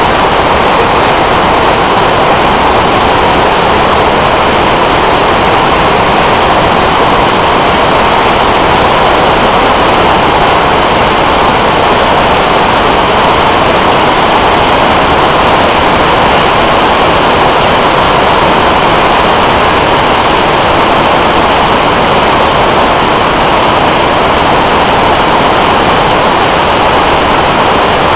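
Large whitewater river rapids rushing: a loud, steady roar of churning water that does not change.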